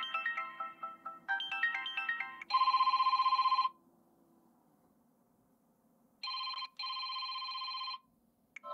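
Phone ringtones previewed one after another through a Samsung Galaxy Note's loudspeaker. Two short electronic melodies are each cut off abruptly, then a rapidly pulsing electronic alert tone plays, stops, and comes back after a pause with a brief break. A new melody starts near the end.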